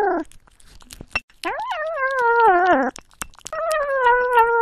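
Ginger kitten eating wet food close to a microphone, making pitched humming growls as it eats, amid wet licking and chewing clicks. A short hum at the very start, then two longer ones beginning about a second and a half and three and a half seconds in, each sagging in pitch at its end.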